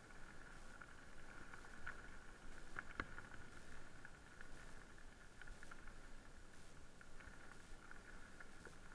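Haibike Sduro FullSeven LT e-mountain bike rolling over a gravel road: faint tyre crunch on loose gravel with scattered small clicks and rattles, one sharper click about three seconds in, over a steady high hum.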